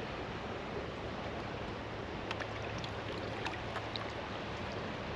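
Steady rush of flowing creek water around a kayak, with a few faint ticks between about two and four seconds in.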